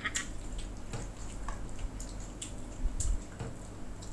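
Eating sounds: metal forks tapping and scraping in ceramic baking dishes while picking through wet noodles, a scatter of light clicks, with a duller knock about three seconds in.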